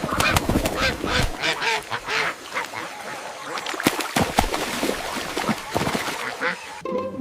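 A flurry of short, rapidly repeated animal calls, quacking-like, that stops abruptly near the end.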